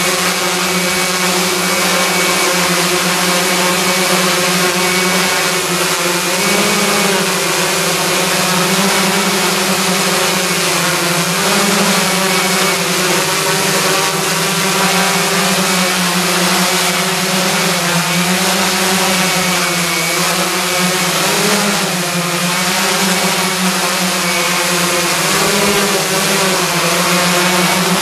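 Giant hexacopter's six electric motors and propellers, driven by Castle Creations Phoenix Edge100 speed controllers, hovering with a loud, steady buzzing hum. Its pitch rises and falls slightly every few seconds as the throttle shifts to hold the hover.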